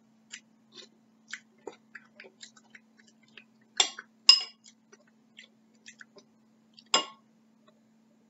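A metal spoon clinks against a ceramic soup bowl while stirring and scooping, with three sharp ringing clinks, two close together about four seconds in and one near seven seconds. Soft chewing and mouth clicks fill the gaps, over a steady low hum.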